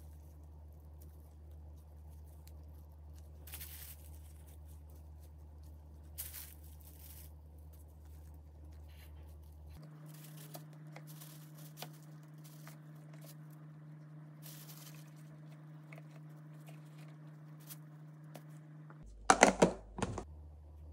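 A low steady hum, which changes about ten seconds in, under faint clicks and rustles of light handling. Near the end comes one loud, noisy burst lasting about a second.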